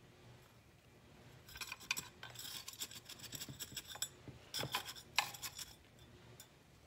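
Small hand trowel scraping and digging through gritty potting mix of perlite and pumice in a ceramic pot, a run of scratchy strokes with light clinks, starting about a second and a half in and stopping about a second before the end.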